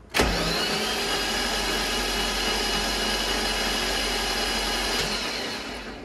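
Starter motor cranking the BMW S50 inline-six with all spark plugs out: a steady, fast whirring spin with a whine that rises as it spins up, then winds down near the end. The engine is cranked plugless to blow pooled oil out of the cylinders so it cannot hydrolock.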